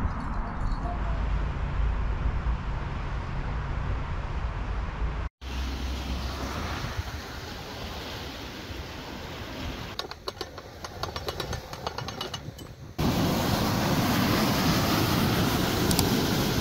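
Narrowboat diesel engine running steadily with a low hum, under wind and water noise, across several abrupt cuts. A run of rapid, evenly spaced clicks comes about ten seconds in, and a louder rushing haze takes over near the end.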